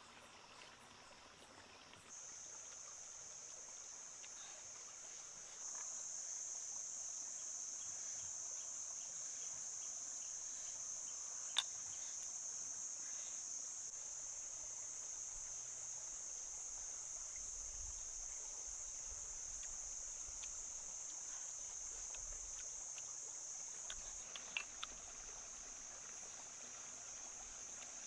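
Insects, crickets or cicadas, keeping up a steady high-pitched drone that gets louder twice in the first six seconds. One sharp click a third of the way in, and a few small clicks near the end.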